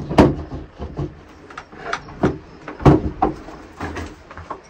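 Parmak Super Energizer 5 electric fence charger being fitted onto a beadboard wall: about ten irregular knocks and clunks of its plastic case against the boards as it is pressed and settled into place.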